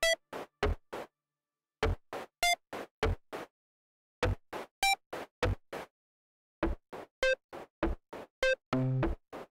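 Electronic sound-design track of short clicky synth blips and beeps in a stuttering rhythm, about three or four a second, cut by sudden gaps of dead silence three times. Near the end a longer low buzzing synth tone comes in.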